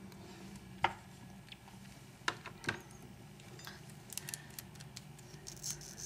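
Light clicks and knocks of small hard objects being handled and set down: three sharper knocks in the first three seconds, then a run of fainter quick clicks near the end, over a faint steady hum.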